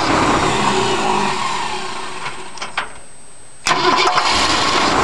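Starter motor cranking the Ford 352 FE V8 in two bursts, with a short break about three seconds in. The engine does not fire, because the ignition key is switched off inside the car while the remote starter button works the starter.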